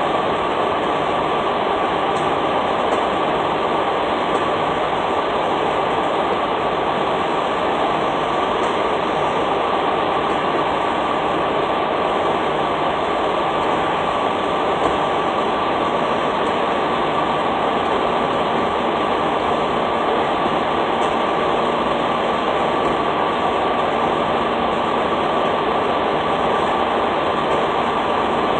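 Steady drone of an idling truck, unbroken and even in level.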